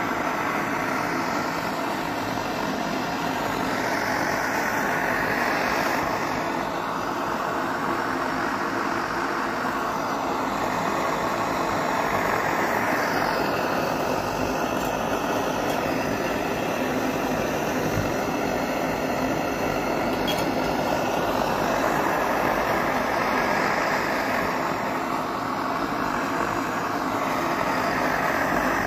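Svea 123 brass white-gas stove burning at full throttle: the pressurised burner gives a steady, loud rushing noise, its hiss swelling and fading slowly every several seconds.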